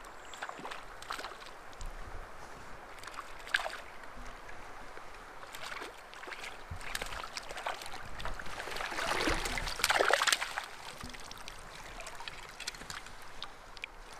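Water splashing and trickling at the river's edge in irregular bursts. The splashing is louder for about a second and a half, about two-thirds of the way in.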